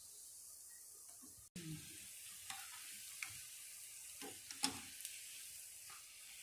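Battered chicken pakodi deep-frying in hot oil with a steady sizzle, nearly done, while a steel ladle stirs through the pan with a few sharp clicks and scrapes. The sound breaks off briefly about a second and a half in.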